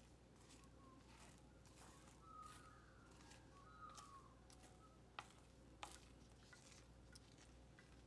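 Faint sounds of a silicone spatula folding thick cake batter in a glass bowl: soft scattered clicks and squishes over a low steady hum, with two slightly sharper clicks a little past the middle.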